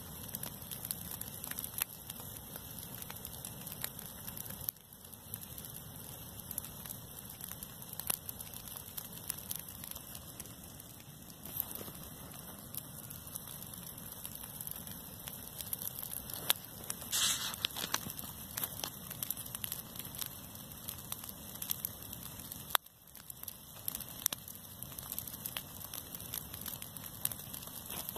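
Dry grass burning in the open: a steady hiss of flames with many sharp crackles and pops.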